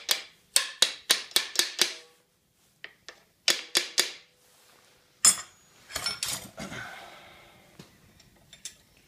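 Hammer tapping a metal drift to drive a new bearing down into a tractor's fan shaft housing: quick runs of sharp metallic taps, about a dozen in the first four seconds, then one harder strike about five seconds in that rings on.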